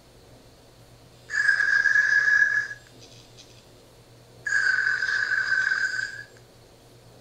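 Anki Cozmo toy robot's electronic snoring sound, as made in its sleep mode: two steady, whistly snores, each about a second and a half long and about three seconds apart.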